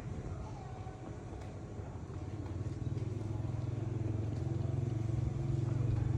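A motor engine running steadily with a low, rapid pulse, getting gradually louder.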